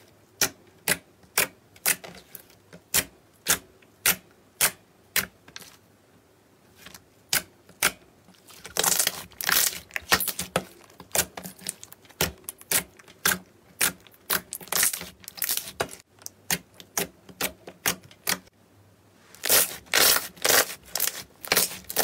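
Thick clear slime squeezed and folded by hand, giving sharp popping clicks as trapped air pockets burst, about two a second. The clicks thicken into denser crackling about nine seconds in and again near the end.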